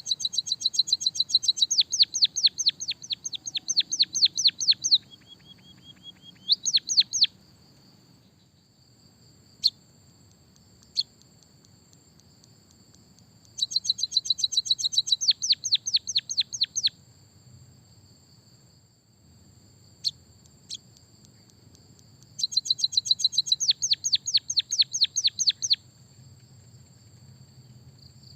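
White-headed munia singing canary-style trills: four runs of fast, evenly repeated high chirps, each lasting a few seconds, with single chirps between them. A faint steady high whine runs underneath.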